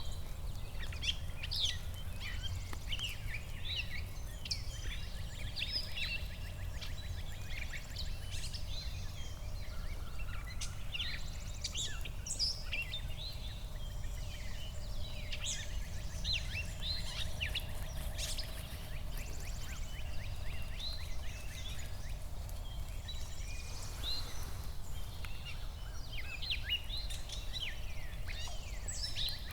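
Several songbirds singing and calling at once, a busy, overlapping run of short chirps and trills, over a steady low rumble.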